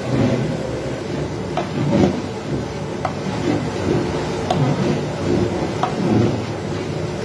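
A metal spoon stirring in a large metal cooking pot, with a few sharp knocks of metal on metal about a second apart, over a steady low rumble.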